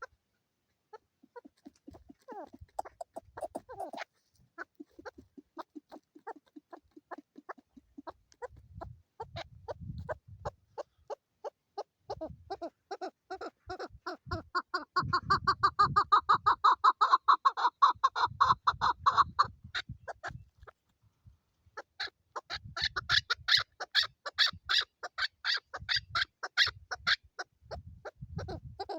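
Female chukar partridge calling: a rapid run of clucking notes, several a second, that builds louder through the middle, breaks off for a couple of seconds, then starts up again.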